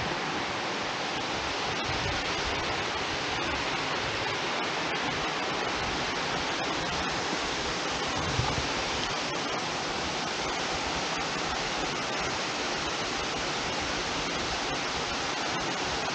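Steady rushing of a waterfall below, an even hiss of falling water, with a faint low thump about eight seconds in.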